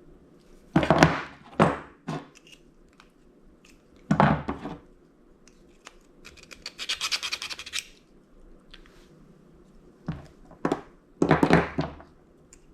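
Metal parts and tools clunking and scraping as a toaster oven is taken apart for scrap: several separate knocks and scrapes, with a rapid rasping sound lasting about a second and a half midway.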